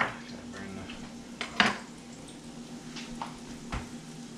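Kitchen utensil clinking against a frying pan and dishes: a few sharp clinks, the loudest about a second and a half in, over a steady low hum.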